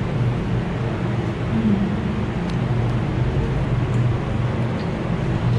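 Steady background hum and noise of a restaurant dining room, with a few faint light ticks.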